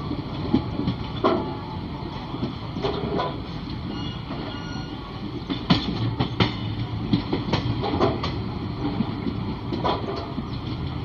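Passenger train coaches running on the rails, heard from aboard the moving train: a steady rumble of wheels on track with irregular clacks and knocks.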